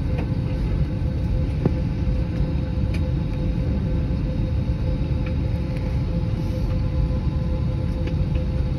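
Steady low rumble inside the cabin of an Airbus A321 on the ground, with a constant hum running through it and a few faint ticks.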